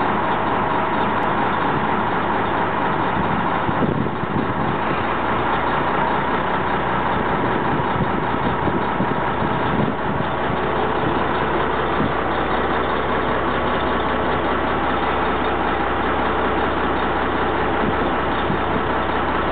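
Diesel engine of a 1990 Mack CH612 dump truck running steadily at a low idle while it drives the hydraulic hoist that raises the dump body.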